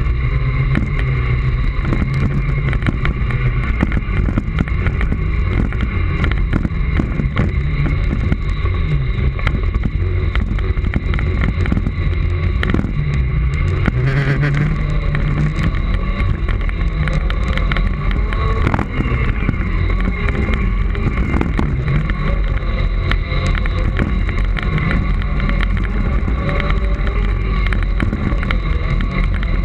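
Segway personal transporter riding over a rough dirt track, heard from a camera mounted on it: a steady low rumble with frequent small knocks and rattles, a steady high whine, and wind buffeting the microphone.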